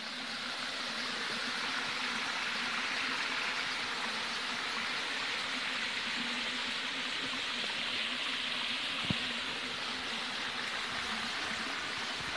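Steady rush of a stream's water cascading over rocks. A single brief tap comes about nine seconds in.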